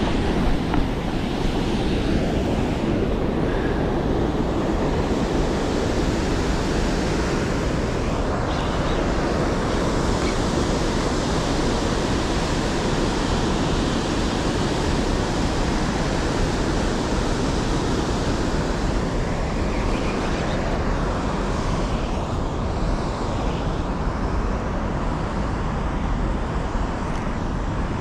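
Wind rushing over the microphone: a steady, even noise, heaviest in the low end.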